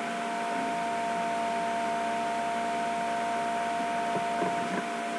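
Room tone: a steady hum with a hiss underneath and no distinct events.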